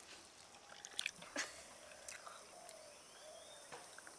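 Faint eating sounds: a few soft clicks and smacks as rice is mixed by hand on a banana leaf and chewed.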